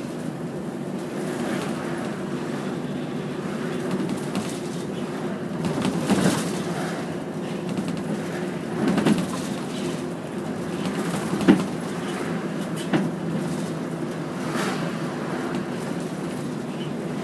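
Interior of a moving route bus: the engine runs with a steady drone, and the cabin gives several short knocks and rattles, the sharpest about eleven and a half seconds in.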